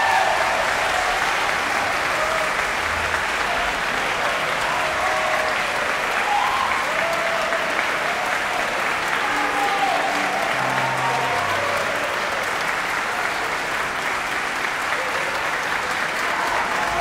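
Concert audience applauding, with scattered shouted cheers rising above the clapping.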